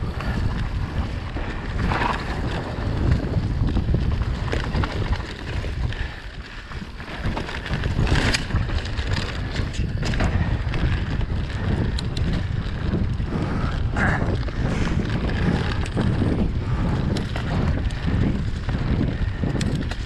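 Mountain bike descending a dirt forest trail: steady wind rumble on the camera's microphone and tyre noise, with frequent sharp clicks and knocks from the bike rattling over bumps.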